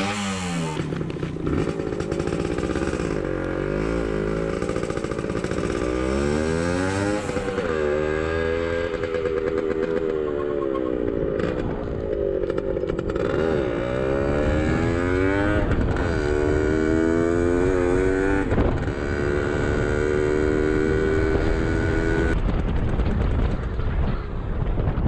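1977 Yamaha DT100's 100cc two-stroke single-cylinder engine pulling away and running through the gears with two riders aboard. From about six seconds in, the engine pitch climbs and falls back several times, once at each gear change.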